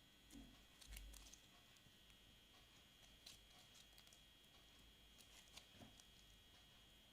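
Very faint clicks and soft squelches of glitter slime being handled, a few scattered pops a second or two apart, close to silence.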